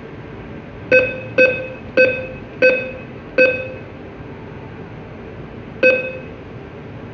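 NCR cash machine's keypad beeping once for each key pressed as a six-digit PIN is entered: five quick beeps in under three seconds, a pause, then a sixth. A steady hum runs underneath.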